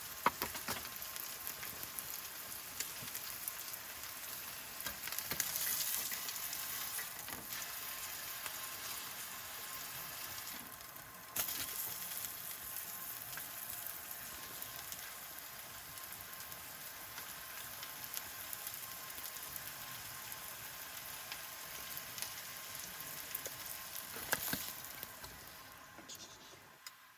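Food frying in a hot pan: a steady sizzling hiss dotted with small pops and crackles, with an abrupt jump in the sound about eleven seconds in.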